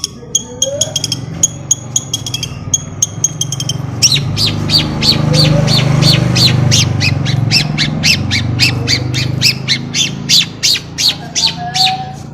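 Long-tailed shrike (cendet) calling in harsh, scratchy notes, scattered at first, then from about four seconds in a fast even chatter of about four notes a second. A steady low hum runs underneath.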